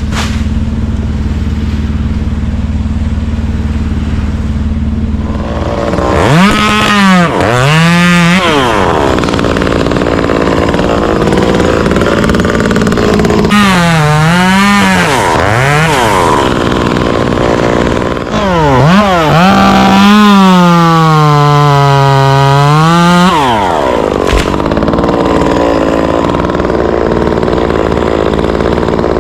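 Two-stroke chainsaw running steadily, then revved and cut through wood three times, the engine note sagging under load in each cut. The last cut is the longest, and the saw then settles back to a steady run.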